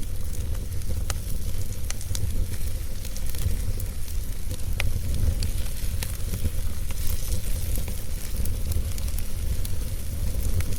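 Wood fire burning, crackling with scattered sharp pops over a steady low rumble.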